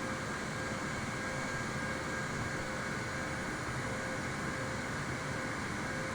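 Steady running noise of an airliner before takeoff, an even hum with faint steady tones and no change in level.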